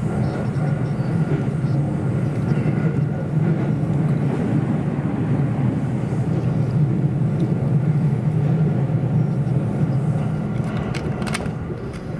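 Interior running noise of a JR East E217 series electric commuter train under way: a steady low rumble of wheels on rail, with a few sharp clicks near the end.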